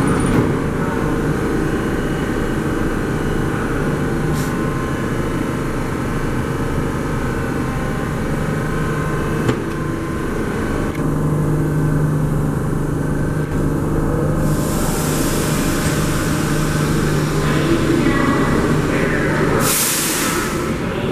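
A stationary R32 subway train hums steadily. About two-thirds of the way in, a hiss of escaping air joins it and ends in a short, loud blast of air near the end.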